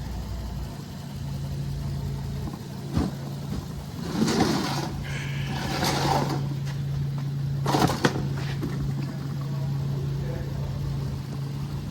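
Ford 6.8L Triton V10 engine of an E-450 ambulance idling with a steady low hum. Several short clatters and rustles of handling are heard over it, with a sharp click about eight seconds in.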